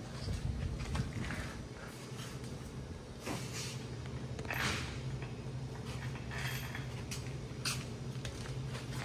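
Scattered light clicks, rustles and short scrapes of hand work on small transmission parts during reassembly, over a steady low hum. The longest scrape comes about halfway through.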